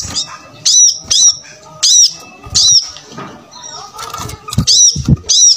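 Brown-throated sunbird (kolibri kelapa) calling: a series of loud, sharp, arched chirps, about two a second, over some low background noise.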